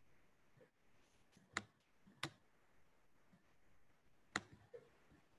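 Near silence, broken by three sharp computer clicks: two close together about a second and a half in, and a third near the end.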